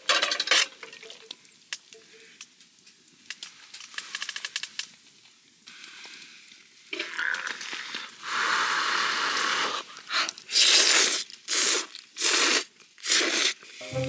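A metal fork scraping and clinking against a frying pan as creamy pasta is stirred and twirled. Light clicks in the first half give way to a longer scrape about eight seconds in, then four or five short loud scrapes.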